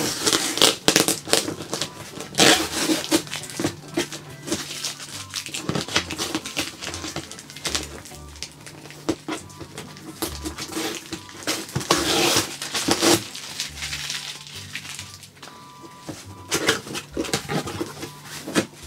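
A large cardboard shipping box being opened and unpacked: irregular rustling, scraping and crackling of cardboard and packaging, with quiet background music under it.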